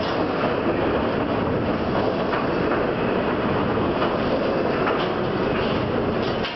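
Double-stack intermodal train's well cars rolling past close by at speed: steady noise of steel wheels on rail, with a rattle of the cars.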